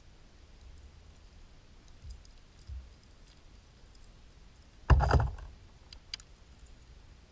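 Scattered small clicks and soft knocks in a fishing kayak, with one loud thump about five seconds in.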